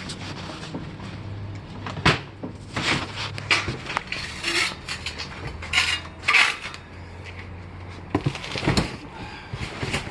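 Household goods being rummaged through and shifted: irregular knocks, clinks and clatter of objects bumping together, with rustling between them. A low steady hum runs underneath and fades out about eight seconds in.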